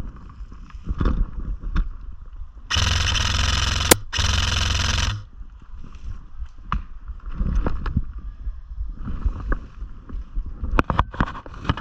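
Airsoft gun firing two full-auto bursts about a second long each, back to back, amid rustling and scattered clicks of movement.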